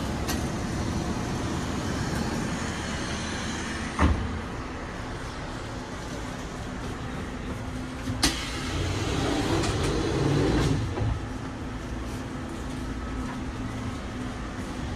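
Passenger train running, heard from inside the carriage: a steady low rumble of wheels on rails, with two sharp knocks about four and eight seconds in and a brief louder swell a little later.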